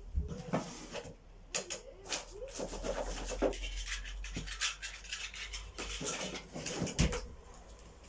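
Someone rummaging through small hard objects while searching for something: a run of clicks, clinks and rustling, with a louder knock about seven seconds in.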